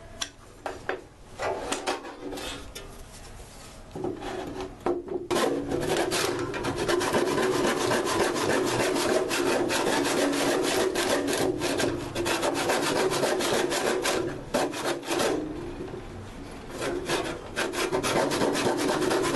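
Hand saw cutting through a 2x4, back-and-forth strokes of the blade in the wood. A few short, sparse strokes for the first few seconds as the cut starts, then steady continuous sawing, easing off briefly near the end before picking up again.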